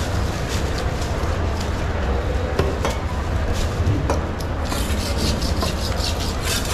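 Knife scraping and rasping against a skipjack tuna in short repeated strokes, which come faster and sharper in the last two seconds, over a steady low hum.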